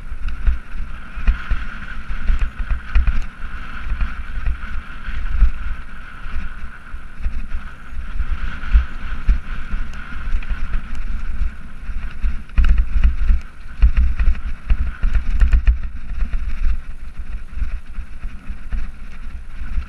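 Mountain bike descending a rocky dirt trail, heard on an action camera's microphone: wind buffeting the mic in uneven gusts, with tyres crunching on gravel and the bike rattling and clicking over stones.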